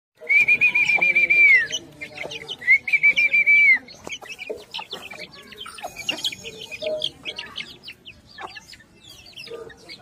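Two long, warbling whistles in the first four seconds, each held at one pitch and falling at its end. Then young Aseel chicks peep in many short, quick chirps.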